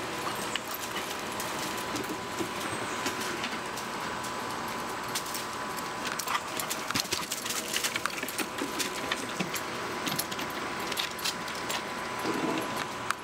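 Dogs' metal collar tags jingling and clicking in quick, irregular bursts as the dogs wrestle and scuffle on dirt, most busily in the middle, over steady background noise.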